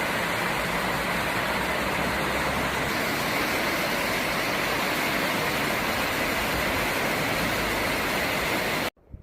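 Mountain stream water rushing over rocks: a loud, steady rush that cuts off suddenly near the end.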